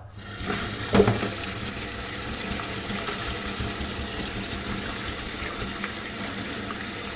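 Water running steadily from a kitchen tap, turned on at the start, with a single knock about a second in.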